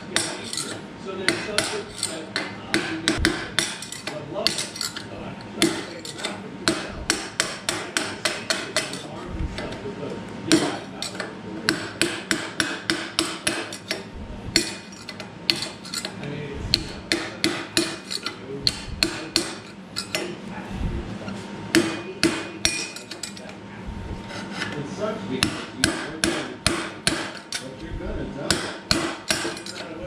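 Rapid runs of sharp metal-on-metal hammer blows, several a second with brief pauses, on a steel headset tool driven against a bicycle's headset cup in the head tube. It sounds as if the headset is being destroyed, though it is not.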